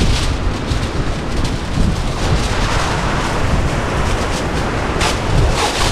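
Wind buffeting the microphone over the steady wash of rough surf, with two brief knocks or clatters near the end.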